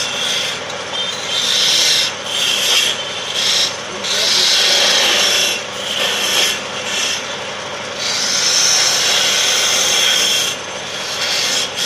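Hand turning chisel cutting into a wooden spindle spinning on a lathe: a scraping hiss that swells and dips with each pass of the tool.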